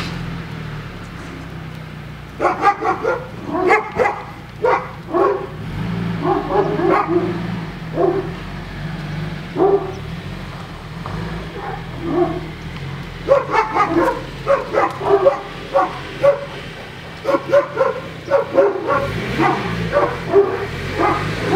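A dog barking in two long runs of short, quick barks with a pause between them, over a steady low hum.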